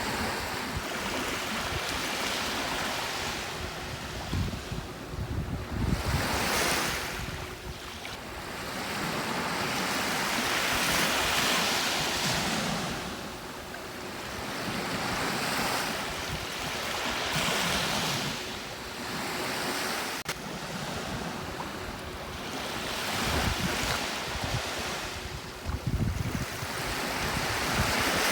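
Gentle sea waves breaking and washing up on a beach, swelling and fading about every six seconds, with wind buffeting the microphone.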